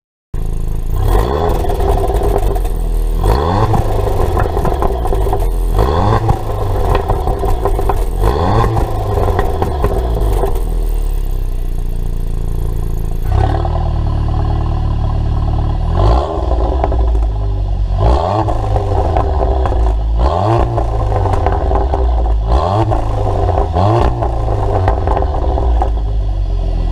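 Volkswagen Golf R Mk7's turbocharged 2.0-litre four-cylinder engine breathing through an Eisenmann aftermarket exhaust, revved again and again in short blips, each a quick rise in pitch that drops back, about one every one to two seconds.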